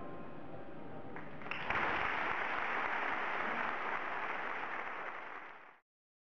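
The last handbell chord dies away, then an arena audience breaks into applause about a second and a half in; the applause cuts off abruptly near the end.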